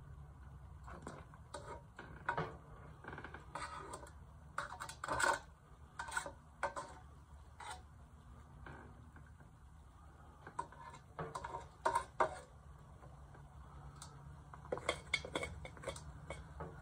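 A steel rod clinking and scraping against a metal can in irregular, scattered taps, with a steady low hum underneath.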